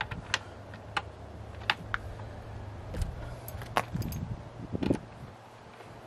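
Scattered sharp clicks and light metallic rattles of a ratchet, socket and bolts being handled at the tail light, about half a dozen in all, over a low steady hum that fades out near the end.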